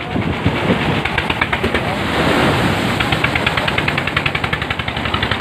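Boat motor running with a rapid, even pulsing, over water rushing and splashing against the hull as the boat goes through breaking waves; the rush of water swells about halfway through.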